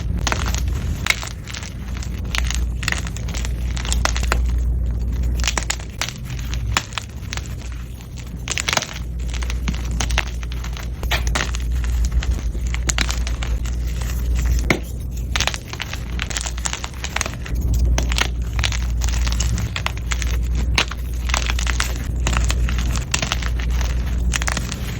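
Blocks of gym chalk being crushed and crumbled by hand: a dense, irregular run of crunchy, crispy crackles, with a low rumble underneath much of the time.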